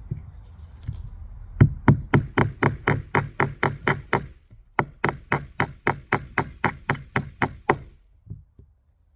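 A hammer knocking in two rapid runs of about five blows a second, with a short pause between them.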